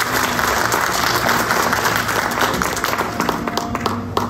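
Audience applauding, dense clapping that thins out near the end, with background music faintly underneath.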